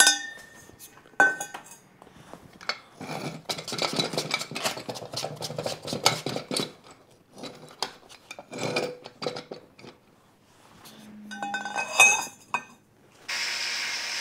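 A steel lifting bar scraping, clinking and knocking against a heavy bolted metal wagon hub as it is slid out of the hub and set down, with scattered metal clatter. Near the end a steady hum starts suddenly: an overhead electric hoist running.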